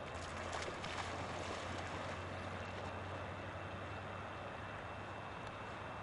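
A field-bred English cocker spaniel splashing into the water in the first second or so, then swimming, over a steady low hum and hiss.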